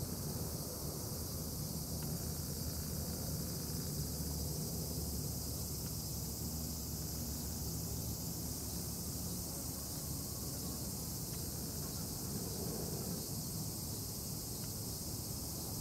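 Steady outdoor background noise: a low rumble under a continuous high hiss, with no distinct events.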